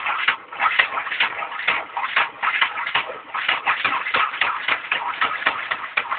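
Rapid, irregular clicking, about five clicks a second, from a 2000 Nissan Maxima as the key is held to start it on a weak battery with a jump box: the starter chatters but the engine does not crank into life.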